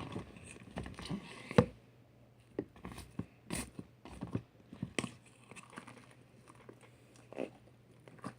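Homemade slime being poked and squeezed by hand, giving off irregular wet clicks and pops, the loudest about one and a half seconds in.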